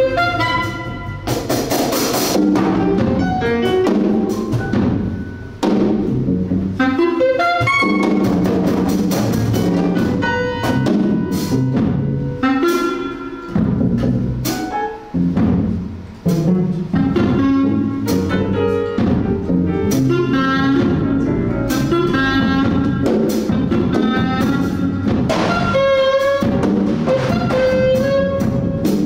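Small jazz group playing live: a clarinet plays a melodic line over drum kit, double bass and piano.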